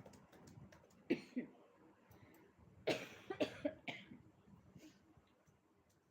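A person coughing in short bursts: a couple of coughs about a second in, then a quick run of four or so coughs around three to four seconds in.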